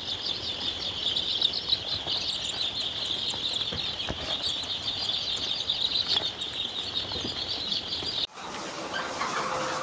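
A large flock of chicks peeping continuously, many high overlapping peeps at once. About eight seconds in the sound cuts off abruptly and a lower-pitched chatter of chickens follows.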